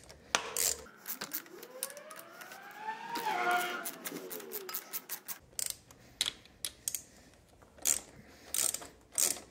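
Socket ratchet clicking in short irregular runs as it loosens the 10 mm axle clamp nuts on a motorcycle's front fork, with a few sharper clicks near the end. Behind it, a tone rises and then falls in pitch from about one to five seconds in.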